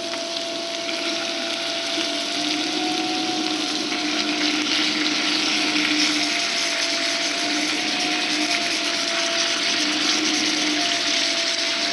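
Dishwasher running, super loud: a steady rush of spraying water over a humming pump motor that wavers slightly in pitch. Underneath it, steak sizzles as it goes into a hot cast-iron skillet.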